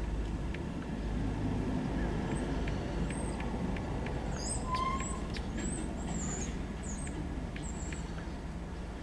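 Birds chirping in short, high calls, with some sharp clicks, over a low steady rumble.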